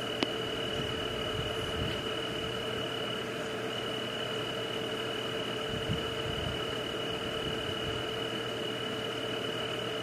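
Steady night ambience of frogs and insects calling: a continuous high trill over a low steady chorus, with one click just after the start. It cuts off suddenly at the end.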